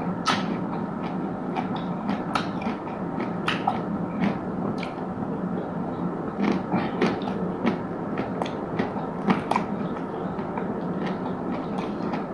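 Close-miked chewing and biting of food, with many short, irregular crisp clicks and crunches.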